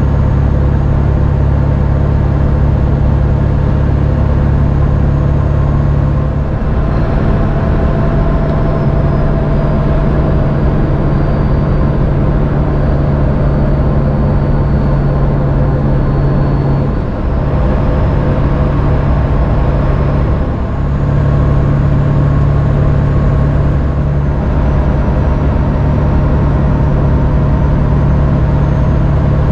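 In-cab drone of a Ford F350's 7.3-litre turbo-diesel V8 cruising at highway speed, with steady tyre and road noise. The low engine hum shifts a few times along the way.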